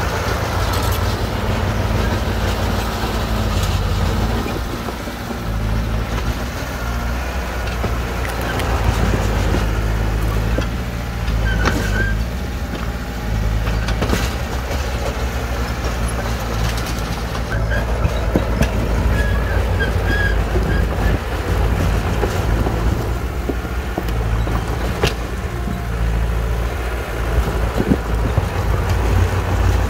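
Diesel engine of a Shantui DH17C2 crawler bulldozer running steadily under load while it works, with occasional knocks and a few brief high squeaks.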